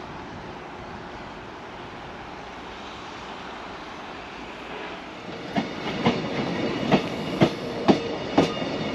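The Caledonian Sleeper train pulling in to the station: a steady rumble, then from about halfway its wheels clacking over the rail joints about twice a second over a steady hum, growing louder.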